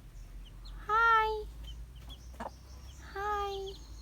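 Mother hen giving two drawn-out calls about two seconds apart, while her chicks peep in short, high chirps throughout.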